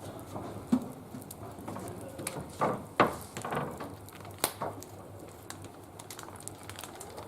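Small wood fire burning in a barbecue grill, with scattered crackles and pops and a few louder knocks.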